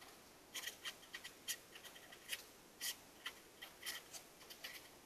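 Sharpie felt-tip marker writing on paper: a string of short, faint, irregularly spaced strokes as an equation is written out.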